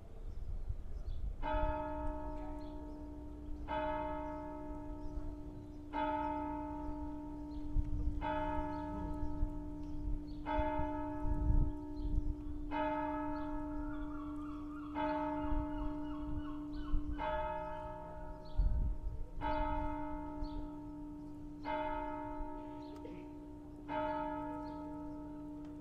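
Church bell striking eleven slow, evenly spaced strokes, about two seconds apart, each ringing on into the next.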